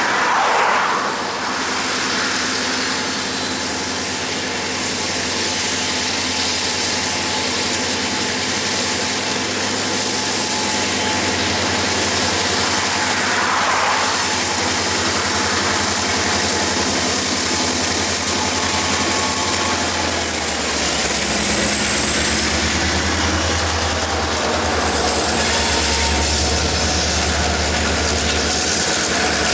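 EMD diesel locomotives of a freight train approaching and passing close by, their deep engine rumble building in the last third. A steady high whine runs through it all.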